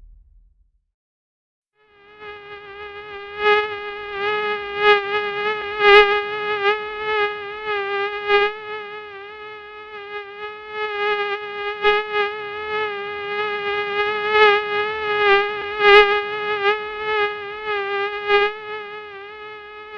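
Mosquito's wing whine: a steady, high buzzing tone that starts about two seconds in and keeps swelling louder and fading again.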